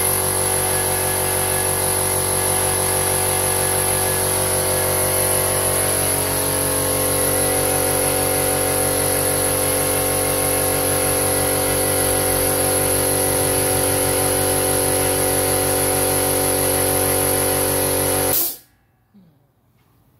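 Elephant 2 HP, 50-litre oil-lubricated piston air compressor running on its first start, a loud steady motor hum and pump clatter with a high whine. It shuts off suddenly a couple of seconds before the end.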